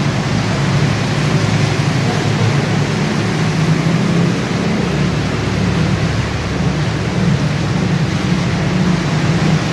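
Overflowing lake water rushing, a loud, steady noise.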